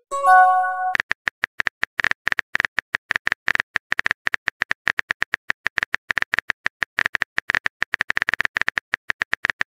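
Rapid, irregular clicking of a phone keyboard typing sound effect. About a quarter second in, a short chime of several tones sounds as a message is sent.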